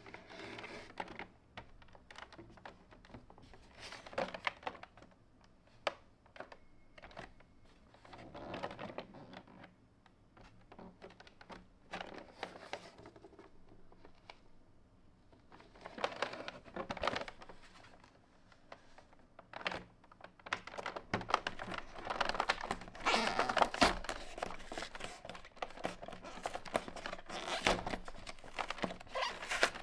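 Hands handling a cardboard collector's box with a clear plastic window: scattered taps, rubs and crinkles as it is turned over, growing busier and louder in the second half as fingers work at the box's sealed end.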